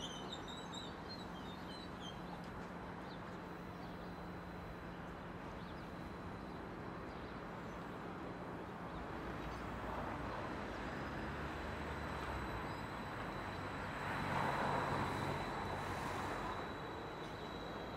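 Steady low hum and hiss of a Stadler FLIRT electric multiple unit standing at the platform. Its hum shifts in pitch about nine seconds in and swells a little around fourteen seconds. A few bird chirps come right at the start.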